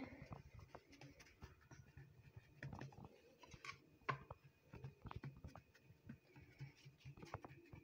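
Faint, irregular soft taps and rubbing from fingers pressing and patting a flour-dusted ball of dough flat on a ceramic plate.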